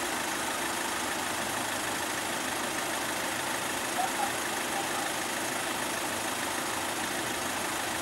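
Steady hum of cars idling in traffic, with a short faint higher sound about four seconds in.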